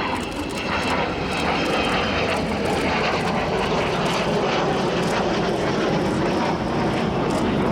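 Avro Vulcan jet bomber's four Rolls-Royce Olympus turbojets, a steady, loud rush of jet noise as the aircraft flies its display.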